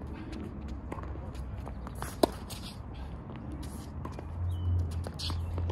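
Tennis rally on a hard court: a single sharp pop of racket strings on the ball about two seconds in, with a fainter hit about a second in and light shoe scuffs and ticks around them. A low steady rumble comes in near the end.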